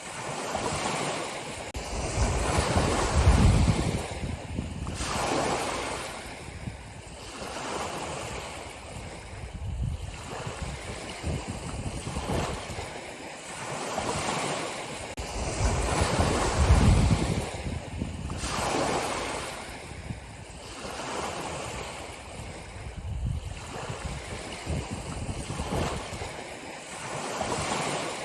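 Ocean surf washing onto a shore, the waves swelling and falling back in irregular surges every few seconds.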